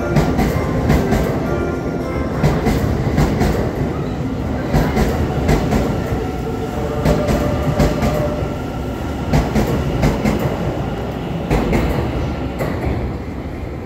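E001 series 'Shiki-shima' train passing through a station platform: a steady running rumble with its wheels clicking over the rail joints, the clicks coming in pairs as each bogie crosses.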